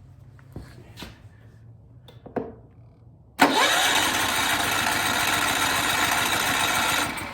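A few small clicks, then about three seconds in a Firman W3300i inverter generator's engine starts on its electric start and runs loudly and steadily; near the end it drops in level and its pitch falls as the engine slows. The engine starting after the carburetor was cleaned and refitted shows the no-start fault is cured.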